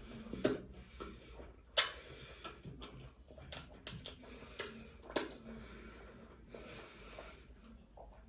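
Close-up eating sounds: irregular wet mouth clicks and smacks from chewing, with a few sharper clicks about half a second, two seconds and five seconds in.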